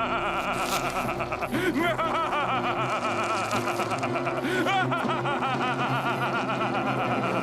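A man's villainous laugh, a long run of rising-and-falling 'ha' sounds, over held background music.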